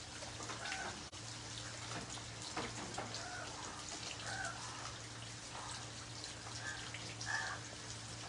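Steady rain falling on wet concrete and puddles: a dense patter of many small drop splashes. A faint low steady hum runs underneath.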